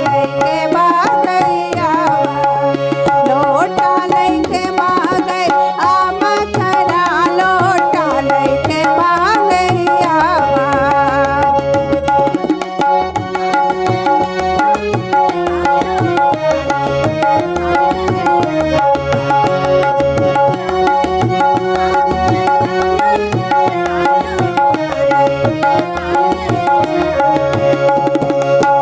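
Tabla and harmonium playing the instrumental accompaniment of a Baghelkhandi fagua folk song, with a brisk, steady tabla rhythm over sustained harmonium chords.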